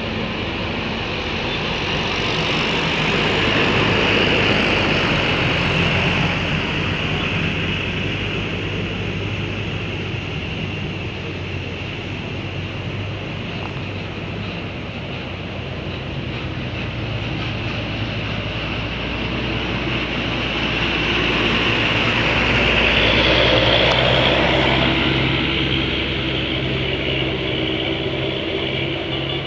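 Bus diesel engines running, with steady road noise, swelling louder about four seconds in and again after about twenty seconds.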